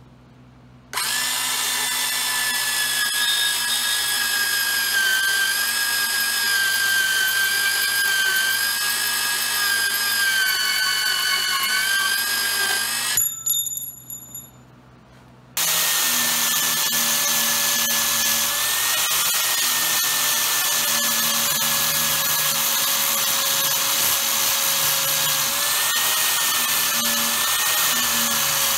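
Milwaukee cordless portable band saw running and cutting through steel pipe with a steady whine, stopping about halfway through, followed by a few clicks. Then an angle grinder with a flap disc starts up and grinds the end of a steel pipe steadily to the end.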